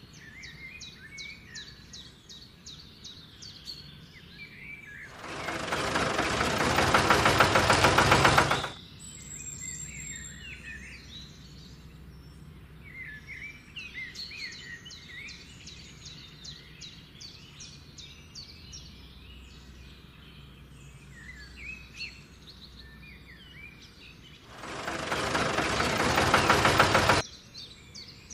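Birds chirping and trilling in quick repeated calls. Twice, about five seconds in and again near the end, a loud rasping noise of unclear source swells over a few seconds and then cuts off abruptly.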